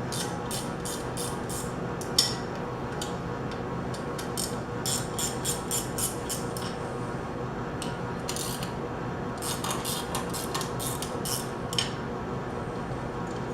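Light metal clicks and scrapes in irregular clusters, from tools and metal pump parts being handled while the collar is worked off the pump motor, over a steady background hum.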